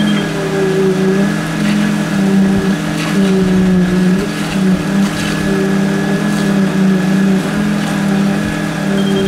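Concrete truck's engine running steadily, its hum wavering slightly in pitch, with a thin high whine, as wet concrete pours from the chute onto the rebar.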